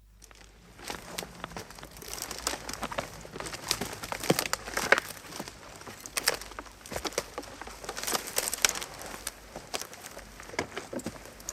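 Footsteps walking through undergrowth, with irregular crunching and crackling of vegetation underfoot.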